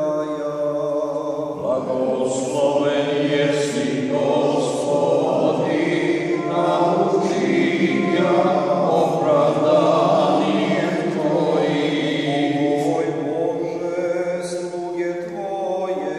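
Orthodox liturgical chant sung by several voices together from service books, in long held notes that step from pitch to pitch.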